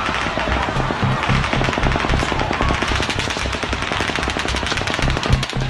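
Rapid automatic gunfire: a long unbroken string of shots, many a second, over background music with a steady low beat.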